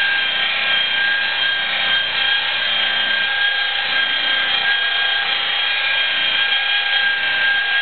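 Electric rotary polisher with a wool pad running steadily against car paint, cutting the hand-sanded clear coat with rubbing compound; a steady whine over the rush of the pad on the panel.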